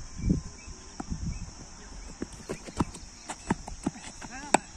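Cricket bowler's run-up footsteps on a dry, hard pitch: a quickening series of knocks. A single sharp crack comes near the end.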